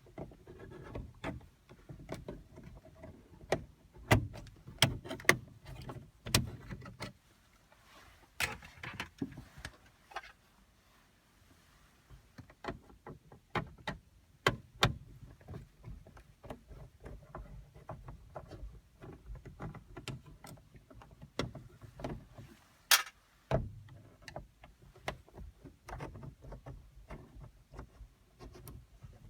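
Hands working plastic car interior trim: irregular clicks, knocks and rubbing, with a cluster of sharp clicks about five seconds in and one loud click near the end.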